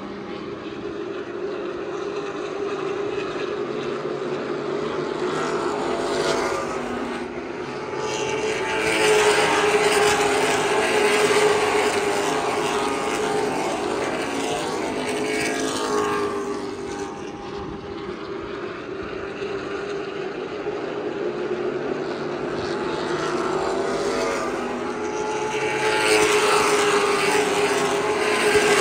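Several short-track race cars' engines running as the field laps the oval. Their pitch rises and falls as cars pass, and the sound swells loudest about a third of the way in and again near the end.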